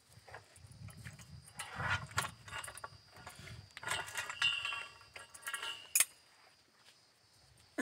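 Metal clinks, knocks and scrapes of a pipe clamp and tools on a borewell's rising pipe as it is handled, with a sharp clank about six seconds in.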